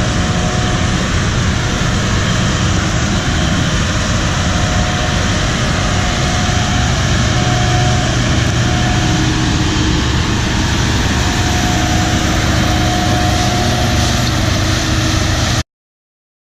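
Large farm machinery engine running steadily under a dense mechanical noise, with a low hum and faint whining tones. It cuts off abruptly near the end.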